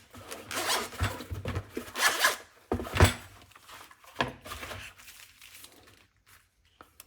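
Zipper of a tool carrying case being pulled open in several strokes, with a few knocks as the case is handled.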